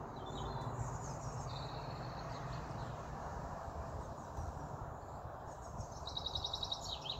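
Outdoor background ambience: a steady hiss of environmental noise with small birds chirping. Short high chirps come a couple of seconds in, and a trill of quick repeated notes near the end.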